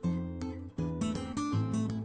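Background music: a strummed acoustic guitar, with sharp, regularly repeating strums.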